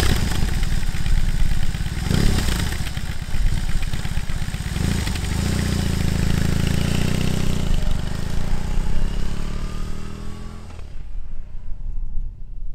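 Big-twin cruiser motorcycle engine running after a start, revved and then pulling away with rising revs. It dies away about eleven seconds in.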